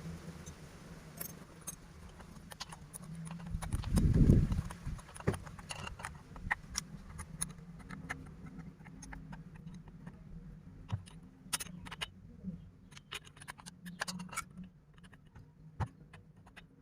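Hand work on chainsaw parts: scattered clicks and small metal clinks of tools and parts being handled, with a dull thump about four seconds in.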